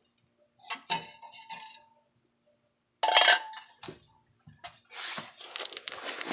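Small metal parts and tools clinking and rattling against each other, with a louder ringing clank about three seconds in and a stretch of metallic scraping near the end: hardware being handled while fitting tailpipe mounts.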